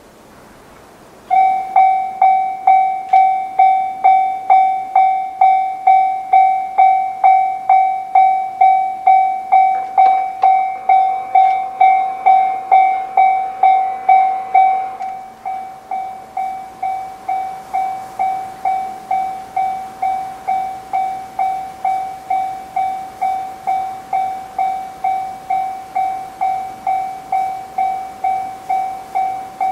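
Japanese level crossing warning alarm starting to ring about a second in: a repeated electronic ding, about two a second, signalling a train is coming. It becomes quieter about halfway through.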